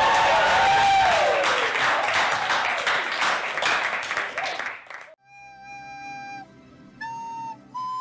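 Audience cheering and applauding, cut off suddenly about five seconds in, then a slow music melody of a few long held notes.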